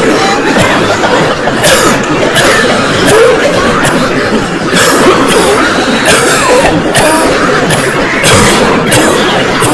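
A crowd of people coughing over one another: a dense, unbroken run of overlapping coughs, with some voices mixed in among them.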